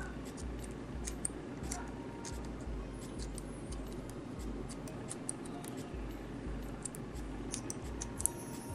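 Small nail scissors snipping through the edge of a bald cap: a run of quick, irregular little snips over a low background hum.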